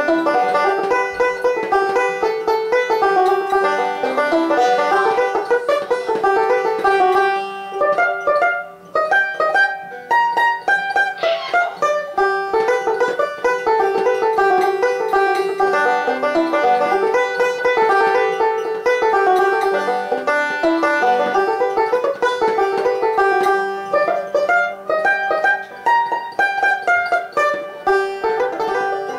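Epiphone five-string banjo fingerpicked in a fast, continuous run of plucked notes, loose noodling rather than a set tune, with a brief pause about eight seconds in.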